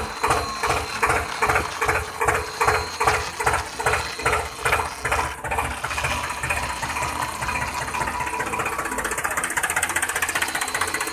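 Engine sound, chugging in a steady rhythm of about three beats a second like a tractor's diesel, then settling into a more even run about six seconds in.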